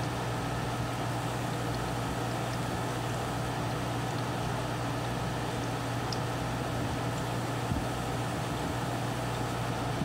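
Aquarium filter running: a steady low hum with an even hiss of moving water.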